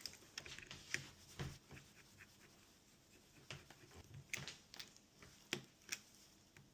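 Faint, scattered small clicks and taps with light rubbing, as of small tools and phone parts being handled during a phone screen repair.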